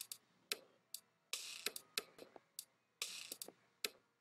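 Programmed drum beat playing back from the EXS24 software sampler: sharp hi-hat ticks and a few longer, hissier snare hits in a swung sixteenth-note groove, heard faintly.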